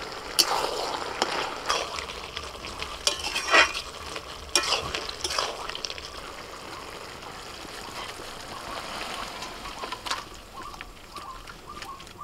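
Hands squeezing and kneading a thick, wet batter of boiled beans, chopped onion, gram flour and rice flour in a stainless steel bowl: irregular squelches and scrapes, busiest in the first half and softer after.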